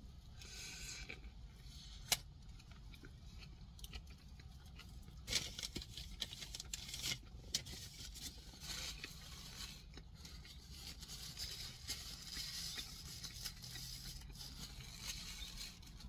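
A person biting into and chewing a Burger King Philly Melt sandwich close to the microphone: scattered small clicks and rustles, with a sharp click about two seconds in. Paper rustles near the end as a napkin is brought to the mouth.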